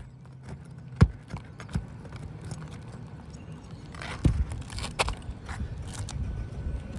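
Roofing nails being pried out of asphalt shingles: scraping and crackling of the shingle with several sharp knocks, the loudest about a second in.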